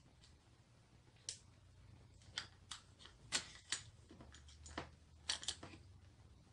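Scattered sharp plastic clicks and taps, about eight at irregular intervals, from the trigger and plastic housing of a hot glue gun being handled and fitted together during reassembly.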